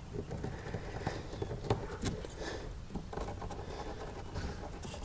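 Faint, irregular light taps and clicks from handling the plastic hatch ring and a marker on the kayak's plastic deck while the screw-hole positions are marked.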